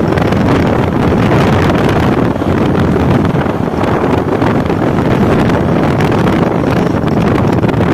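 Steady wind rush on the microphone of a motorcycle riding at road speed, mixed with the motorcycle's running.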